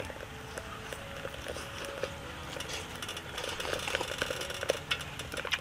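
Someone eating from a small bowl with chopsticks: soft chewing and scattered light clicks of chopsticks against the bowl.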